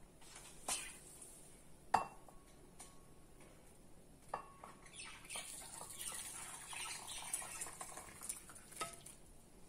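A nonstick pan and a ceramic bowl knock together a few times, the loudest knock about two seconds in with a short ring. Then thin, hot horse gram rasam is poured from the pan into the bowl, a splashing pour lasting about four seconds.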